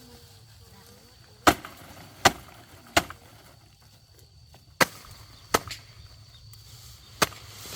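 Chopping: six sharp, separate blows, three in quick succession, a pause, then three more.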